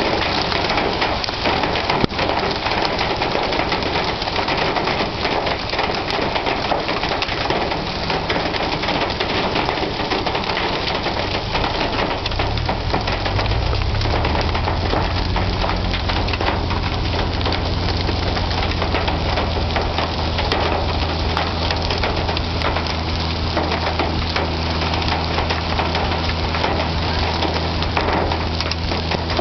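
Heavy rain and hail pelting down: a dense, steady hiss crossed by many sharp ticks and knocks of hailstones striking hard surfaces. A steady low hum comes in about twelve seconds in and stays under the storm.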